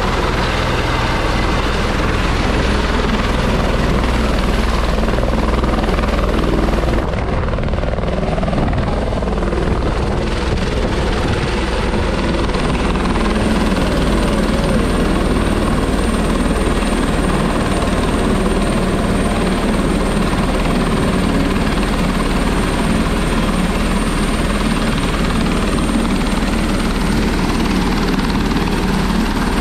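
Helicopter running loudly close by as it hovers down onto the pad and then sits with its rotor turning. The blades beat in a fast low throb under a steady high whine that comes in about twelve seconds in.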